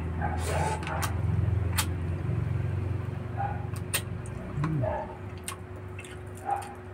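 A motor vehicle's engine rumbles low, then drops in pitch and fades out about five seconds in. Over it come the scattered clicks and smacks of someone eating barbecue and rice by hand.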